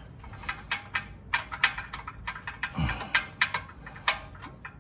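Irregular light metallic clicks and taps as a bolt is worked by hand into the transmission's bell housing bolt hole, its threads not lining up.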